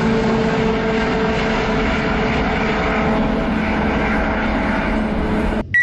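Antonov An-225's six turbofan jet engines in flight: a loud, steady jet drone with a few held hum tones. It cuts off abruptly near the end, followed by a brief high tone.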